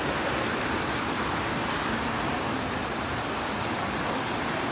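Waterfall's falling water rushing with a steady, even noise.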